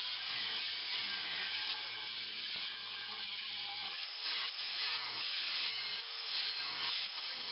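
Angle grinders cutting into 2-inch square steel tubing, a steady high grinding hiss of abrasive wheel on steel that rises and dips a little as the wheels bite.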